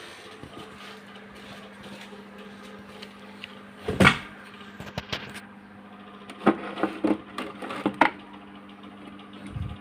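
Knocks and clattering handling noises, a loud knock about four seconds in and a cluster of sharper knocks between six and eight seconds, over a steady low hum.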